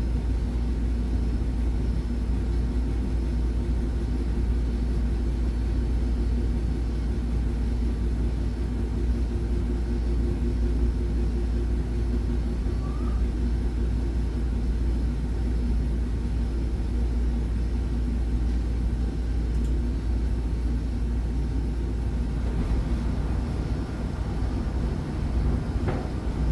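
Old Bryant gas furnace running after startup: a steady low rumble of the gas burners and inducer motor, with a constant hum.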